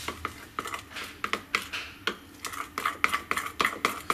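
A utensil stirring melted dark chocolate and sweetened condensed milk in a glass mixing bowl, clinking against the glass in quick, irregular taps, several a second.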